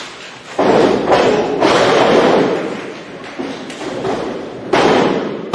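Wrestlers' bodies slamming onto a wrestling ring's canvas: three heavy thuds, about half a second in, at a second and a half, and near the end, each dying away over about a second.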